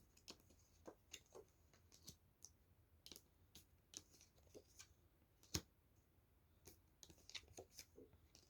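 Faint, scattered clicks and light taps of tarot cards being handled and laid down, with one sharper tap about five and a half seconds in.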